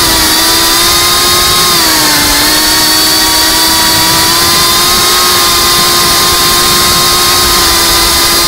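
GEPRC Cinelog35 FPV drone's brushless motors and propellers whining steadily in cruising flight, as picked up by the camera mounted on the drone. The pitch dips briefly about two seconds in, then holds level.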